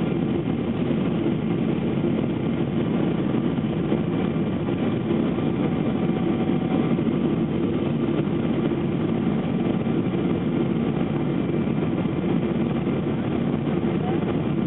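Steady cabin noise inside a Boeing 777 twinjet airliner on approach to land: the engines and the rushing airflow make a constant low drone with a hiss above it, unchanging throughout.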